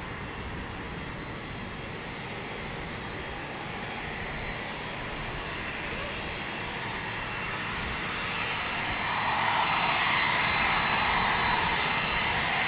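Boeing 767-300ER's twin GE CF6-80C2 turbofan engines running at low taxi power as the airliner turns on the runway: a steady jet whine with a thin high tone. It grows louder about two-thirds of the way through as the aircraft swings around to face the listener.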